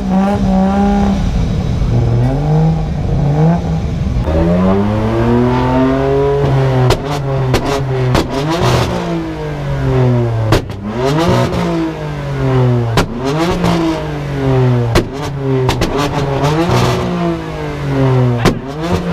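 Sports car engine revved again and again, its pitch climbing and falling every second or two, with sharp exhaust pops and cracks as the revs drop, from about seven seconds in.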